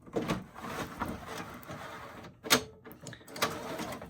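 A plastic CED videodisc caddy being pushed into the loading slot of a CED videodisc player: a scraping slide with a few sharp clunks, the loudest about two and a half seconds in.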